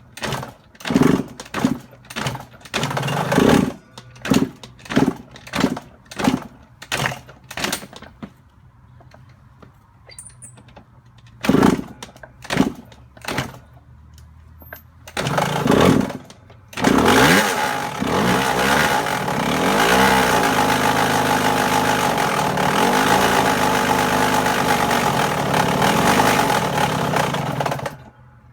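Yamaha YZ125 two-stroke engine: a run of short, evenly spaced thumps, then a few more spaced further apart, as the engine is kicked over. It fires briefly, then catches about 17 s in and runs with the revs rising and falling. The owner is seeking help with a loud knocking sound from this engine.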